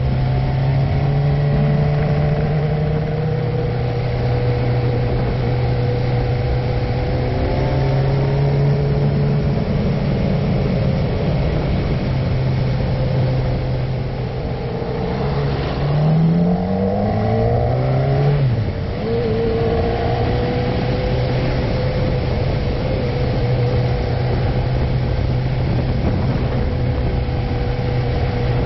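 Motorcycle engine running at a steady road speed with wind noise over the microphone. Just past halfway the engine revs rise for about three seconds, then fall suddenly at an upshift, and it settles back to a steady pull.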